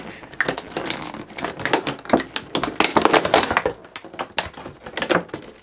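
Clear plastic blister packaging of a boxed doll crinkling and crackling as it is pulled open by hand, with many irregular sharp crackles and a busier stretch of crinkling in the middle.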